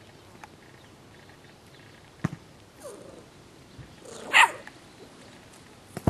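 English Bulldog puppy giving one short bark about four seconds in, with a couple of sharp knocks before and after it.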